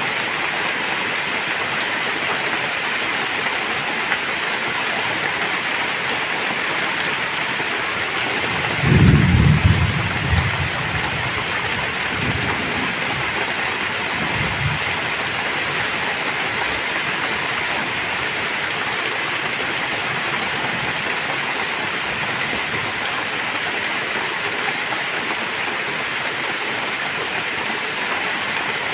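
Heavy rain falling steadily. About nine seconds in, a low rumble of thunder lasts a second or two, then trails off in two fainter rumbles.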